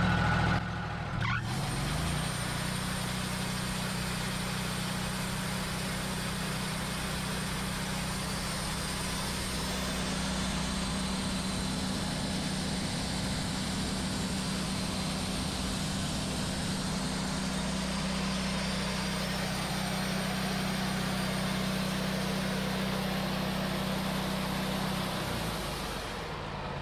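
Wood-Mizer LT40 band sawmill running with the blade engaged: a steady engine note with the band blade and band wheels spinning free, not cutting, as a test run of the blade's tracking after a band wheel adjustment. The note changes about a second in as the blade engages, and the engine winds down near the end.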